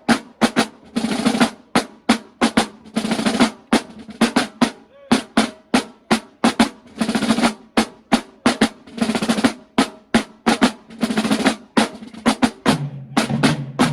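Marching band drumline playing a cadence: rapid drum strikes and rolls, with heavier accented bursts about every two seconds.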